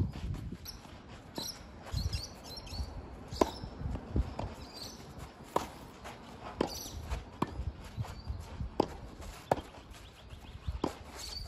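Tennis rally on a clay court: a tennis ball struck by racket strings with sharp pops about every second or so, some louder and some fainter, with footsteps scuffing on the clay between shots.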